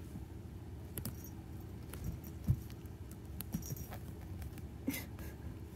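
A cat playing with a cloth toy: scattered light taps, scratches and rustles as it grabs and tugs. One louder thump comes about two and a half seconds in, all over a low steady hum.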